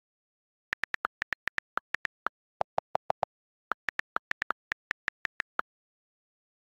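iPhone on-screen keyboard key clicks as a message is typed, in quick runs of short pitched ticks. Around 3 s in comes a run of five lower-pitched clicks, the sound of the delete key, before the higher letter clicks resume.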